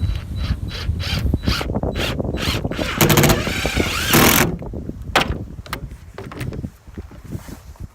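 Power drill driving screws through the sheet-metal roof flange around the wood-stove pipe: a run of short bursts about twice a second, then a longer, louder run about three seconds in. Wind rumbles on the microphone underneath.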